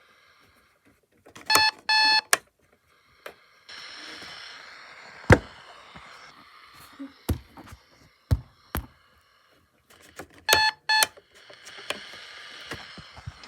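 Electronic alarm beeping: a pair of short, high-pitched beeps about a second and a half in, and another pair about ten and a half seconds in. Between them come a few sharp knocks, the loudest about five seconds in, and two stretches of hiss-like noise.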